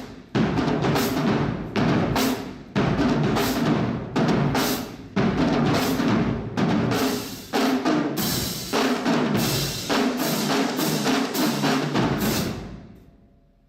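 Drums playing a loud, heavily accented rhythm with bass drum and snare, fading away about a second before the end.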